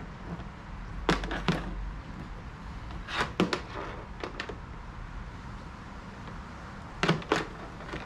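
Sharp clicks of small plastic wire connectors and power cables being handled by hand: a pair about a second in, a quick cluster around three to four seconds, and another pair about seven seconds in, over a low steady hum.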